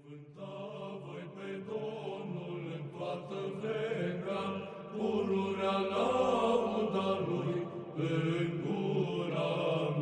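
Orthodox church chant: slow singing in long held notes that grows louder over the first few seconds.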